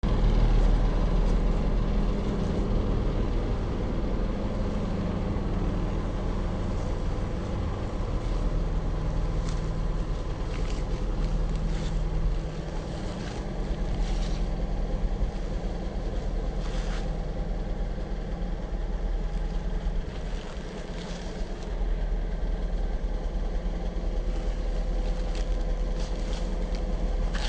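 Diesel engine of a Kobelco SK485 excavator (345 hp) idling steadily, with a constant low hum and a few light clicks.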